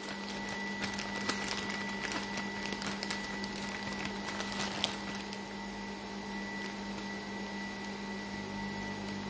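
A thin plastic bag crinkling and rustling as uncooked wonton pieces are handled and pulled out of it, mostly in the first half. Under it runs a steady machine hum with a faint high whine.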